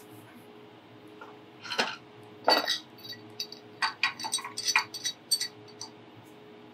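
Metal tool clinks and knocks: an adjustable wrench being picked up and fitted onto a brass pipe fitting held in a steel bench vise. The sharp clicks come in an irregular run over about four seconds, the loudest one early in the run.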